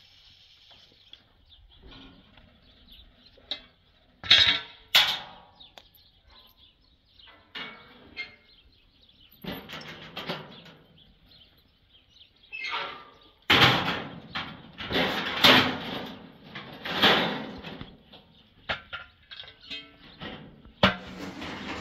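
Irregular metallic clanks and bangs from work on a steel pavilion frame and its corrugated metal roof sheets: a couple of sharp strikes early, then a dense run of loud bangs in the second half, with quiet gaps between.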